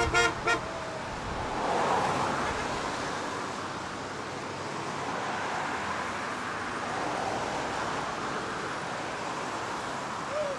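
Two short car-horn beeps near the start, then the steady hiss of car tyres on a wet road, swelling as a car passes about two seconds in.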